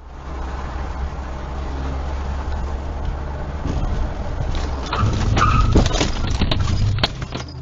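Car on the road with a steady low engine and road rumble, then a string of sharp knocks and bangs from about three and a half seconds in, loudest near six seconds: the sound of a collision.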